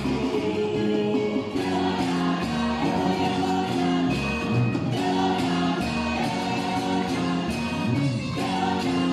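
A church worship team of several singers performing a gospel song together into microphones, backed by electric guitar and bass over a steady beat.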